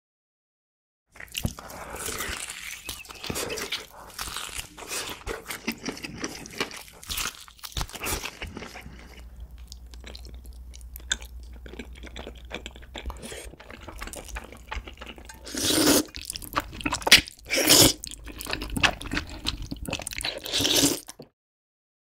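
Close-miked eating sounds: crunchy bites and wet chewing of food, starting about a second in, with a few louder bites in the second half.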